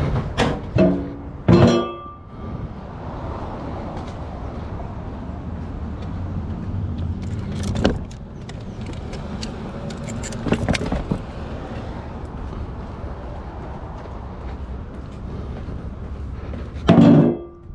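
A vehicle engine running steadily, with intermittent metallic clanks and knocks, the loudest a ringing clank near the end.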